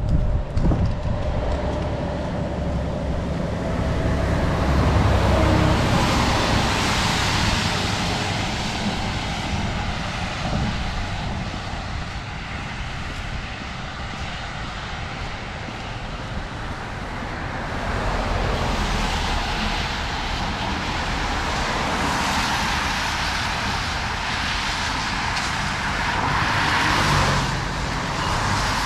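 Road traffic on a rain-wet street: cars going by one after another, louder as they pass about five seconds in and again through the second half, with wind rumbling on the microphone.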